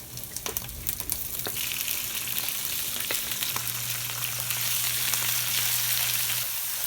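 Chinese cabbage stir-frying in hot oil over high heat: loud steady sizzling, with clicks and scrapes of the cabbage being tossed in the first second or so.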